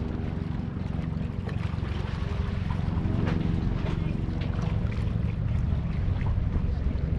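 A boat's motor running steadily, with water slapping against the hull and wind on the microphone. It grows a little louder about two to three seconds in.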